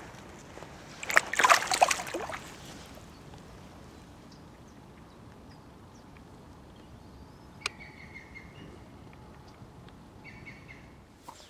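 Water splashing for about a second as a carp is let go back into the river, then a faint riverside background with two short bird calls.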